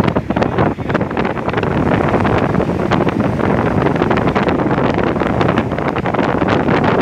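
Strong wind buffeting the microphone: a loud, steady rush with many small crackles.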